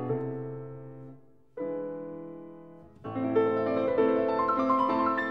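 Piano music: a chord dies away, another is struck about one and a half seconds in and fades, then a new phrase of notes begins about three seconds in and climbs higher toward the end.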